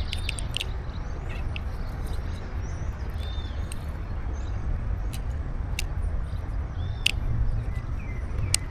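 Wind buffeting the microphone as a steady low rumble, with birds chirping now and then and a few sharp ticks.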